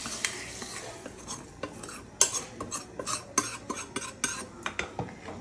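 A metal spoon scraping and tapping inside a steel pan, knocking the last of the fried spices out into a pot of sambar. From about two seconds in there is a quick run of sharp metal clinks.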